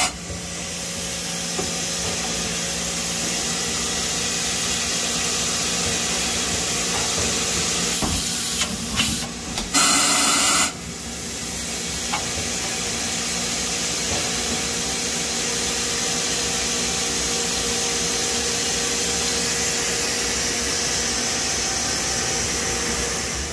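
Mazak Integrex 100-IV ST CNC turn-mill lathe running, a steady hiss with a low machine hum as its milling head and spindles move. There are two short, louder bursts of hiss about eight and ten seconds in.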